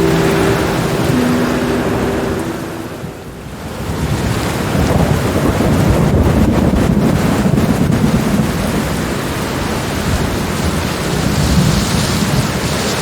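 Steady rain with a long, low rumble of thunder building after a brief lull about four seconds in. Soft held music notes are heard over the rain during the first few seconds, then stop.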